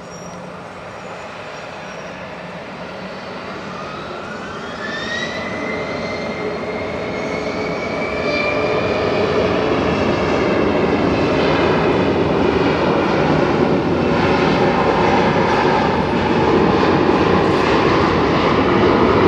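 Gulfstream G650's twin Rolls-Royce BR725 turbofan engines spooling up to takeoff thrust: a whine rising in pitch a few seconds in, then engine noise growing steadily louder as the jet accelerates down the runway.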